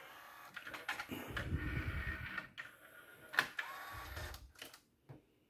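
Sony TC-C5 cassette changer's loading mechanism cycling: its small motor whirs in two stretches, with sharp clicks and clunks in between as it moves the cassettes. The mechanism has just been re-belted and re-timed and is working.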